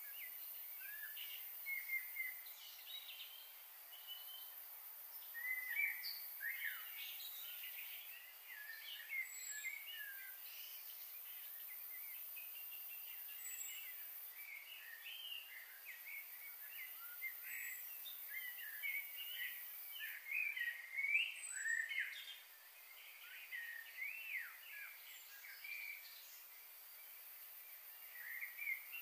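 Several small birds chirping and calling, with many short, quick notes and sliding whistles overlapping throughout. A faint, steady high hiss lies underneath.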